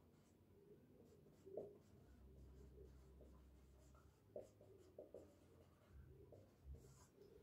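Faint marker pen writing on a whiteboard: soft scratchy strokes with a few light ticks as letters are formed.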